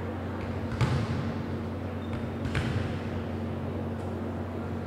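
Two short thuds of a volleyball bouncing on the hardwood gym floor, about two seconds apart, over a steady low hum.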